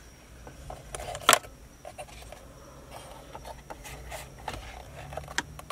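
Plastic dashboard switch panel and trim being handled by hand: light rubbing and scattered small clicks, with one sharp plastic click about a second in.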